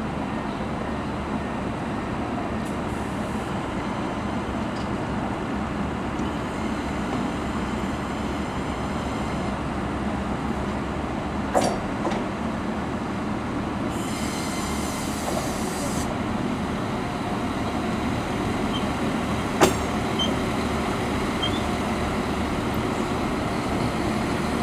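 NIR 4000 Class diesel multiple unit running slowly into the platform: a steady rumble of diesel engines and wheels on rail. A short hiss of air comes about two-thirds of the way through, with a sharp knock near the middle and another about four-fifths of the way through.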